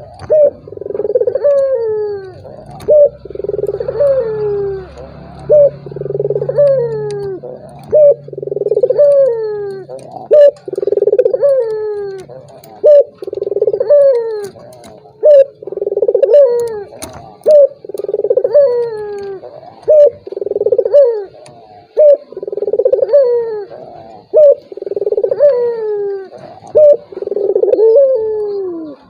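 Puter (Barbary dove) cooing over and over: a short note, then a longer falling coo, roughly once every second and a half. It is a lure recording of the kind played to set reluctant doves cooing.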